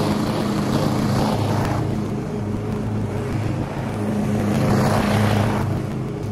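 Stihl RM 545 VR petrol lawn mower running steadily as it cuts grass; its engine fades as the mower moves away, then grows louder again over the last couple of seconds as it comes back.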